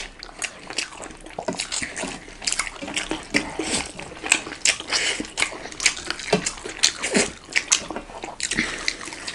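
Close-miked eating of goat-meat curry and rice: wet chewing and lip-smacking, with the rice squelching as it is mixed by hand on a steel plate, in a dense run of short clicks and wet noises.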